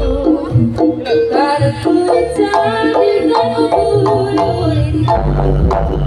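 Loud Javanese bantengan music played live through a sound system: a melodic lead line with changing notes over hand-drum strokes. A low steady drone drops out just after the start and comes back near the end.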